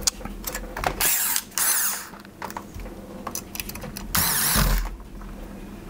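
Corded electric screwdriver driving screws into a graphics card, running in three short bursts: two in quick succession about a second in, and one more about four seconds in. Small clicks of handling between them.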